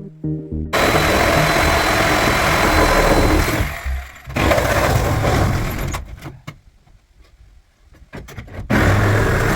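A motorized tool or engine running loud in bursts: two long runs, then a quieter stretch of scattered knocks and clatter, then it starts up again near the end.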